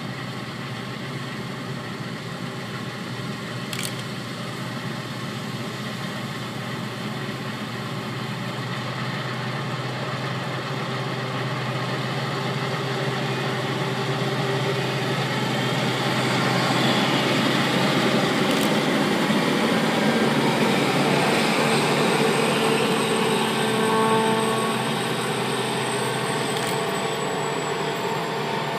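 Combine harvester running as it works the wheat, a steady engine and machinery drone that grows louder as it comes closer, loudest about two-thirds of the way through, then eases a little.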